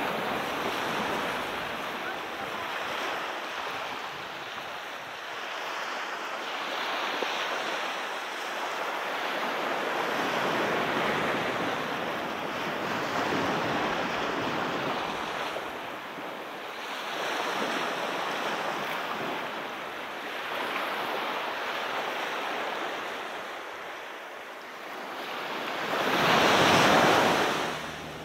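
Sea surf on a beach: waves breaking and washing in, the rush swelling and fading every few seconds, with the loudest wave near the end.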